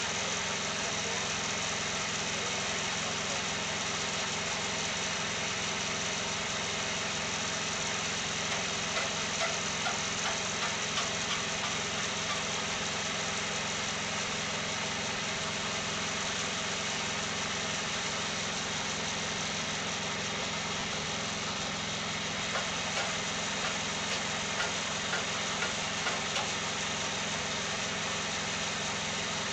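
Engine of a Wood-Mizer portable sawmill running steadily, with a run of light, evenly spaced knocks near the middle and again near the end.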